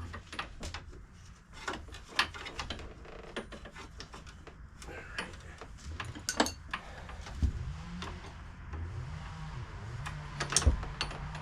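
Scattered light clicks and knocks of hand work on a scooter's plastic panels, clips and throttle cable. A faint low hum rises and falls in the second half.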